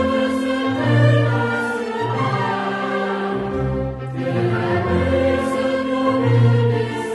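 Choir singing a slow Christmas song with a chamber orchestra, in sustained phrases over a recurring bass line.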